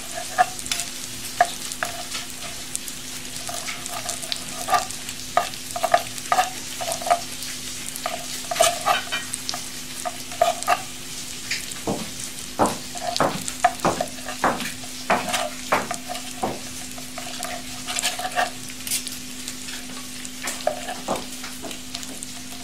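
Knife dicing cooked chicken breast on a plastic cutting board: irregular sharp knocks, coming quicker and louder in the middle. Underneath is a steady frying sizzle from meat on an electric tabletop grill, with a low hum.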